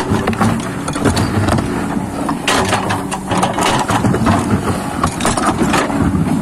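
Excavator's diesel engine running under load, with irregular knocks, clanks and scrapes as it works in sand and stones.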